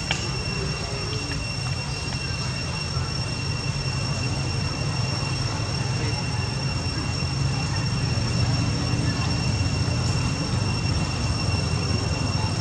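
Steady high-pitched insect drone, one unchanging whine, over a low steady rumble.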